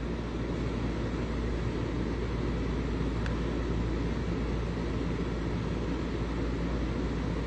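Steady low hum and hiss of background noise, unchanging throughout.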